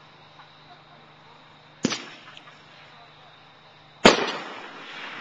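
Dominator "Braggin' Rights" aerial firework: a sharp bang about two seconds in, then a louder bang about four seconds in as a red shell bursts, trailing off.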